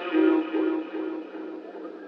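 A male Quran reciter's voice chanting in the melodic mujawwad style, closing a long ornamented note whose pitch wavers up and down before it fades out just over a second in. A steady low hum runs underneath.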